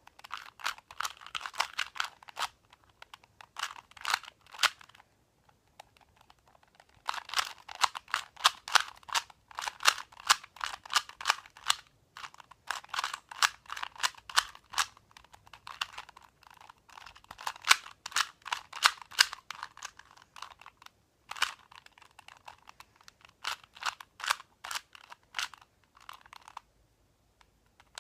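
A 2x2 Rubik's cube being turned fast by hand in a timed solve: rapid runs of plastic clicks and clacks as the layers snap round. The runs are broken by a few short pauses, the longest about five seconds in and another near the end.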